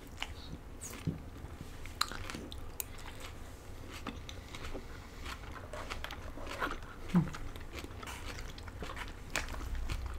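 People chewing mouthfuls of poke bowl (rice, salmon and salad greens), with soft mouth sounds and scattered short clicks of a spoon and fork against clear plastic bowls.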